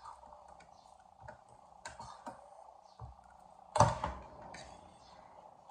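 Eating utensils clicking and scraping against plates, a few light clicks spread through, with one louder knock about four seconds in.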